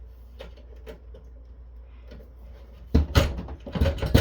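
A network switch's circuit board and faceplate being wiggled and pried by hand in its metal chassis: a few faint clicks, then from about three seconds in a quick irregular run of loud knocks and rattles. The board is stuck, loose but binding in the case.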